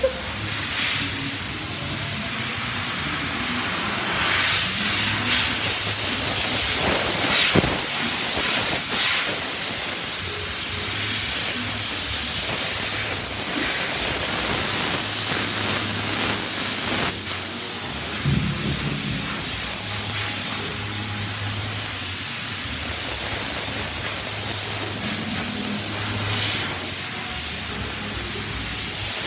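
A steady hiss, strongest in the high range, with a faint low hum beneath it.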